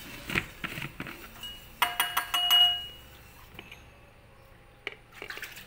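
Kitchen containers and utensils being handled: a few light knocks, then a quick run of clinks with a ringing tone about two seconds in, then a couple of faint taps.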